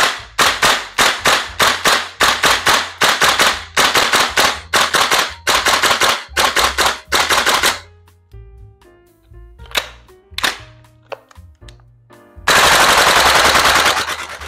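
VFC HK416A5 V3 gas blowback airsoft rifle dumping a magazine. It fires a long, fast string of sharp shots at about four a second, then a few spaced shots, then a very fast burst lasting about two seconds near the end.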